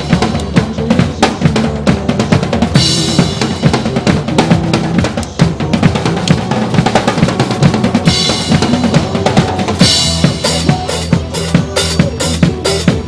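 Acoustic drum kit played live in a driving rock beat of kick, snare and cymbals over a backing track. Cymbal crashes swell around 3 s and 8 s in, and near the end the kit plays a run of evenly spaced heavy hits.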